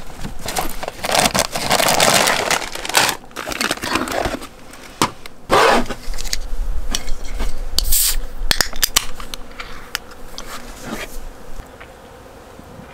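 Rustling of bags and fabric as hands rummage in a fabric storage box, then a beer can's pull tab cracks open with a sharp hiss about halfway through, followed by quieter small clicks and handling.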